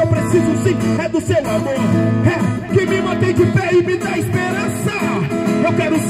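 Acoustic guitar playing chords, with a man's voice performing over it through a handheld microphone.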